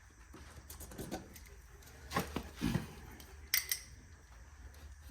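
A few light knocks and clicks as a GFCI receptacle is handled and traced around to mark the size of a hole to cut, with a sharper click about three and a half seconds in.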